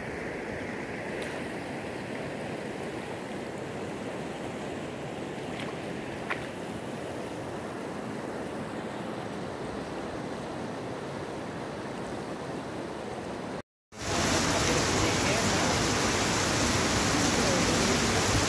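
A steady outdoor rush of wind and flowing floodwater. After a short cut, heavy rain pours down on pavement, a louder, dense hiss that continues to the end.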